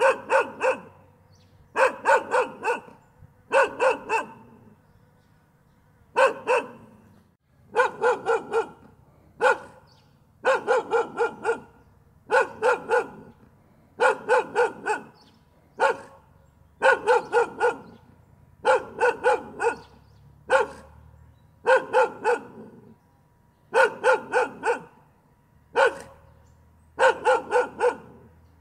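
A dog barking over and over in quick runs of two to five barks, with a run or a single bark every one to two seconds.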